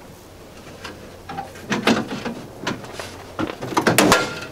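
Irregular knocks and scrapes of a hand tool working at a rusty steel bulkhead foot and chassis outrigger, in two clusters, the loudest about four seconds in.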